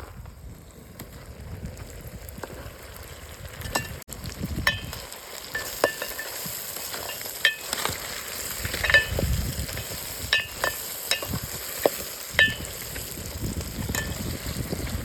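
Food sizzling in a hot metal pot as a metal spoon stirs it. The spoon knocks against the pot a dozen or so times at irregular intervals, each knock a short ringing clink.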